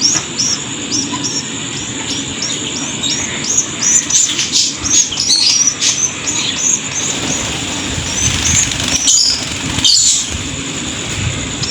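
Caged birds chirping quickly and continuously: short, high, repeated chirps about three or four a second, over a steady high-pitched hiss.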